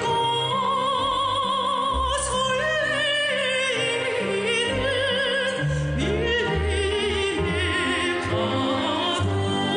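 Music: a song with a singer's voice wavering in a strong vibrato over instrumental backing with a steady bass.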